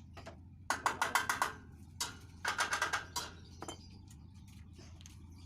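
Two quick runs of light metallic clinking, each about a second long and made of half a dozen rapid taps, with a few single clicks between. A faint low hum runs underneath.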